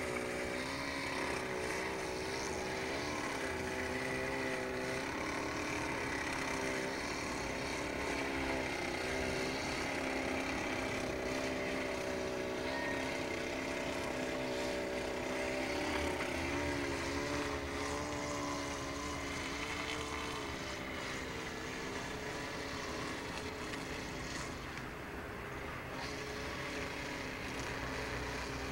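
A steady motor-like drone whose pitch wavers slightly, over a hiss.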